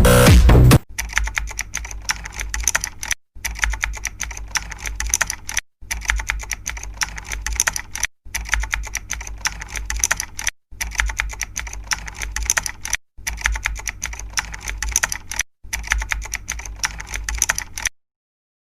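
Rapid computer-keyboard typing clicks, a stretch of a little over two seconds repeated seven times with short dead gaps between, as a looped sound effect. The typing cuts off about a second before the end.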